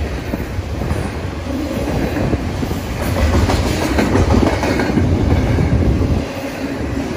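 Double-stack container cars of a long freight train rolling past at speed: a steady heavy rumble of steel wheels on the rails, with sharp clicks as the wheels cross the rail joints.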